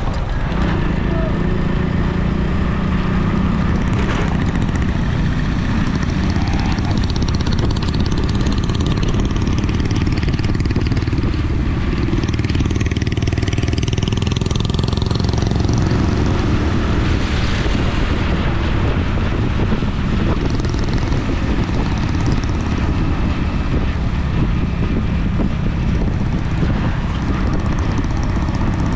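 Motorcycle engine running steadily at riding speed, with a heavy low rumble of wind buffeting the microphone on the moving bike.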